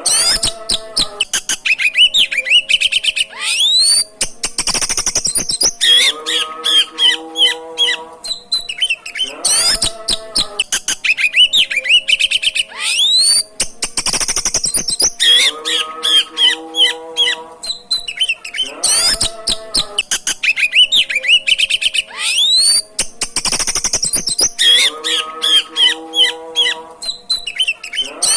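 Oriental magpie-robin (kacer) in full song: loud, varied chirps and rising whistles with rapid rattling trills and lower, harsher calls. The same phrase sequence repeats about every nine and a half seconds, as in a looped recording.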